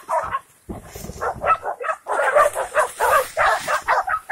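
A pack of hunting dogs barking and yelping in a rapid, overlapping chorus as they bay a wild boar.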